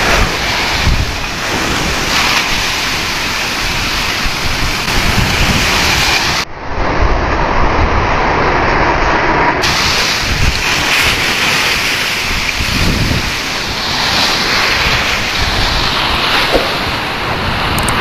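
Heavy sea waves breaking against a concrete seawall and splashing over it, with wind buffeting the microphone in gusty low rumbles. These are the high waves, about 1 to 2 m, of a tidal surge that is flooding the shore.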